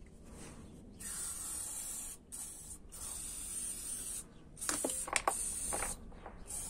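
Aerosol can of silicone spray hissing in several short bursts. A few light metallic clinks come in around five seconds in.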